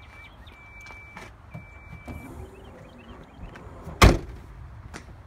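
An SUV door slamming shut once, sharply, about four seconds in. Before it, a run of short steady high beeps stops about two seconds in.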